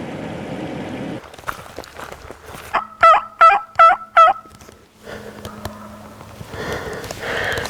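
Wild turkey calling: four loud yelping notes in quick succession, roughly half a second apart.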